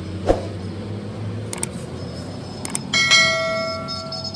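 A hammer strikes steel with a sharp clang about three seconds in, leaving a bright ringing tone that fades over about a second and a half. A dull knock near the start and a couple of light taps come before it.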